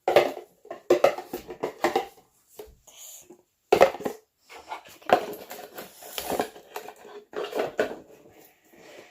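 Irregular clattering and knocking of household containers and utensils being handled, like bowls and spoons set down and moved.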